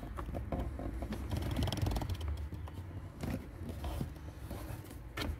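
Plastic cabin-air-filter cover being worked into its slot in the filter housing behind the glovebox: light scraping of plastic on plastic with a few small clicks.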